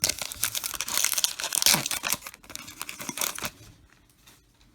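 Foil trading-card pack wrapper being torn open and crinkled, a dense crackle lasting about three and a half seconds before it dies down.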